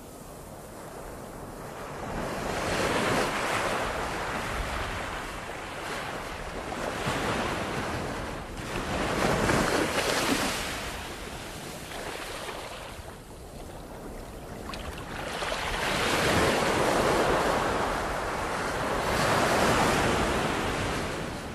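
Ocean waves breaking and washing in, swelling and receding every few seconds, and dropping away near the end.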